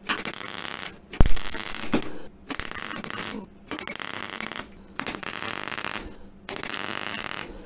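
Gasless flux-cored MIG welder arc crackling in six short bursts of about a second each, with brief pauses between, as it stitch-welds a seam in the sheet steel of an MGB front wing. A single thump about a second in.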